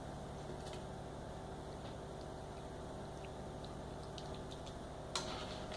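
A spoon scooping meat sauce onto a layer of lasagna, with scattered light clicks and one slightly louder click about five seconds in, over a steady low hum.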